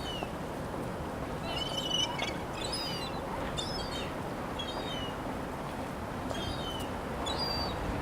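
Birds calling over steady outdoor background noise: about seven short, high-pitched calls, each falling in pitch, repeating every second or so from about a second and a half in.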